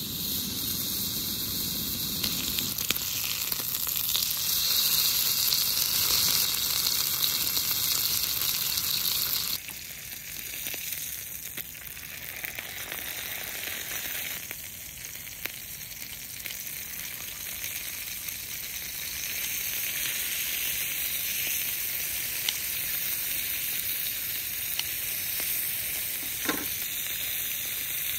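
Food sizzling as it fries. The sizzle is loud for about the first ten seconds, then drops abruptly and goes on more quietly, with one light tick near the end.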